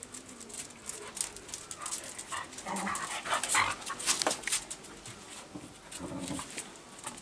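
Dogs, two Australian kelpies and a beagle, panting as they jostle close together, with many light sharp ticks and a louder short vocal sound around the middle.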